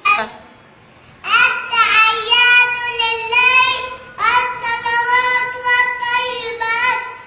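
A small boy's high voice chanting a prayer in a sing-song melody, holding long notes. It starts after a brief pause about a second in.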